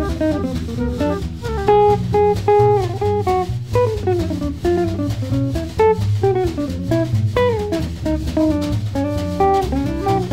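Recording of a 1950s jazz quartet of flute, guitar, bass and drum kit: a quick line of single notes moves over the bass and the drums keeping time.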